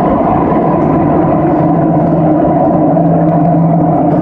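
Madrid Metro Line 3 train running at speed through a tunnel, heard from inside the carriage: a loud, steady rumble of wheels on rails. A steady low tone comes in about a second and a half in and holds.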